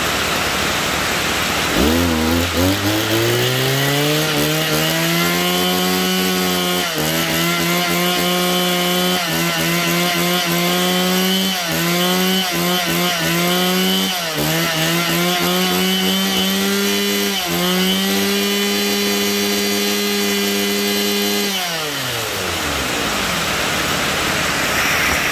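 Mitsubishi TL261 26cc two-stroke brush cutter engine starting about two seconds in, its pitch climbing as it catches. It then runs with a steady note that dips and recovers several times, and near the end is switched off and winds down. Steady hiss of heavy rain on a tin roof underneath.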